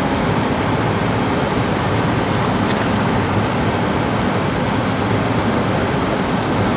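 Steady rushing cabin noise inside a Boeing 757 airliner: an even hiss of air and aircraft systems, unchanging throughout.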